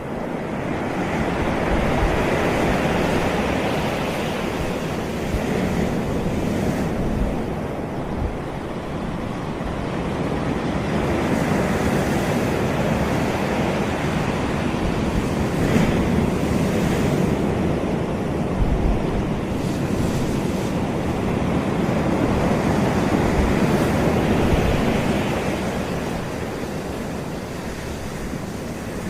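Caribbean sea waves breaking and washing up a beach, the surf swelling and easing every several seconds.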